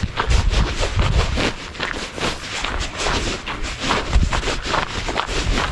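Footsteps crunching on a gravel dirt road at a regular walking pace, with wind rumbling on the microphone.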